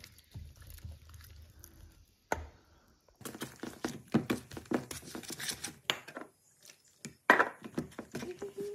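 Wire whisk beating a wet flour-and-egg batter in a metal bowl: rapid runs of clinking, scraping strokes of the wires against the bowl, with a brief pause and a sharper knock about seven seconds in.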